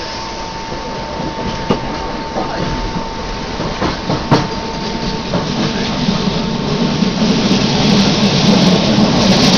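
Passenger train running on rails, heard from inside the carriage: a steady rush of running noise with a few sharp clicks from the wheels and a thin steady whine, the rumble growing louder over the last few seconds.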